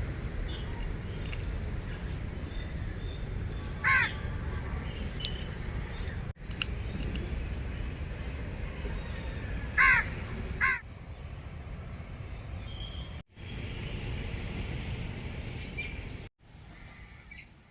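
Crows cawing: one call about four seconds in, then two close together around ten seconds in, over steady outdoor background noise with a thin high steady tone. The sound cuts out abruptly for a moment three times.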